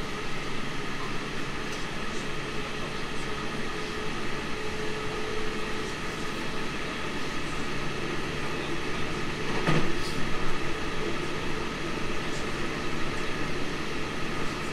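Steady rumble and hum of a JR 313 series electric train, heard from inside the passenger car, with a brief louder knock a little under ten seconds in.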